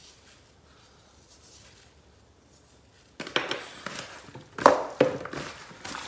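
Hands rubbing salt and spices into raw chicken wings in a plastic bowl: irregular wet squishing and rustling that starts about three seconds in, after a quiet stretch.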